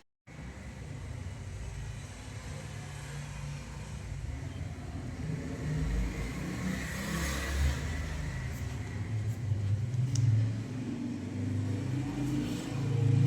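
Low, steady rumble of a motor vehicle that swells to a peak about seven seconds in, then settles.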